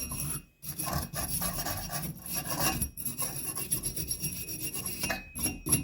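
Rough scraping and rubbing inside a Delta Monitor shower valve body, in several strokes with short pauses, as calcium deposits are worked out so the new cartridge can go in.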